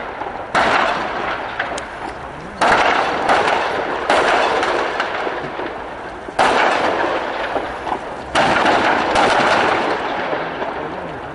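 Explosions in a burning building: four loud blasts in two pairs, each going off suddenly and followed by a rumble that fades over a second or two, with a smaller bang between the pairs.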